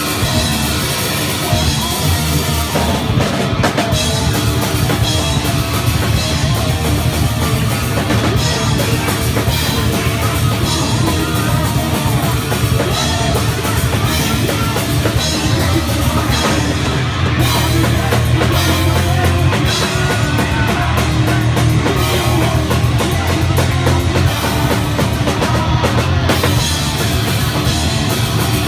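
A thrash metal band playing live at full volume: drum kit, distorted electric guitar and bass guitar, dense and without a break.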